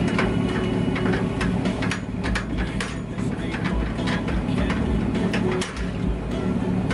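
A vehicle on the move: a steady low road rumble with frequent sharp rattling clicks over it.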